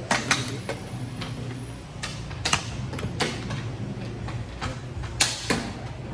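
Sharp clacks of xiangqi play: pieces struck down on the board and the chess clock pressed, about nine times at uneven intervals, over a low steady hum.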